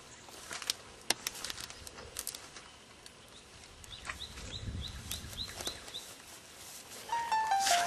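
Footsteps and rustling in dry grass, scattered irregular crunches, with a small bird chirping about three times a second for a few seconds in the middle. Brief low wind rumble on the microphone midway, and music starts near the end.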